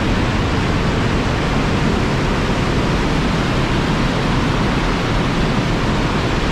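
Box Canyon Falls, an 85-foot cascade of Canyon Creek, pouring into a narrow quartzite canyon: a steady, really loud rush of falling water.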